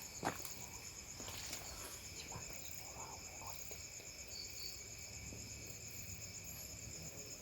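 Chorus of crickets trilling steadily, a fast pulsing high-pitched trill, with a few faint soft clicks.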